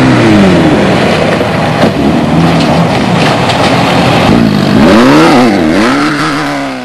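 Off-road race vehicle engine running hard over a loud rushing noise. The engine pitch rises and falls several times in quick succession about two-thirds of the way through, as the throttle is worked.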